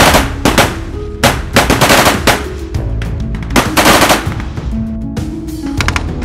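Bursts of automatic fire from a belt-fed light machine gun: a few short bursts at first, then two longer bursts around two and four seconds in, over background music.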